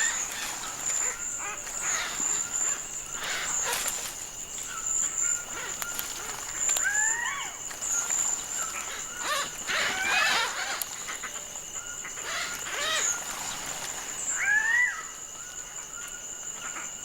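Male cock-of-the-rocks calling at their lek: short calls that rise in pitch, strongest about 7, 10 and 15 seconds in. A steady high insect whine runs underneath.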